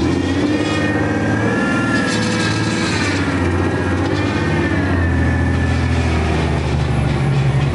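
Hyundai Genesis Coupe drift car driving past, its engine running with a steady low note that rises and falls, and a wavering high squeal over it in the first few seconds.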